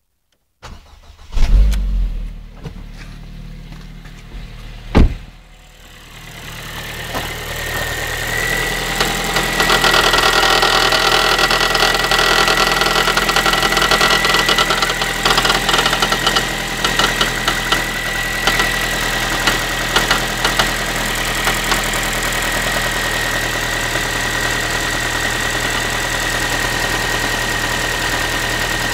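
Ford Focus 3's 1.6-litre 125 hp petrol engine just after a cold start, with a loud thump about a second and a half in and a sharp knock about five seconds in. The engine then settles into a steady run with a high whine and a tinny, pan-like clatter, a mechanical knock that the owner cannot identify.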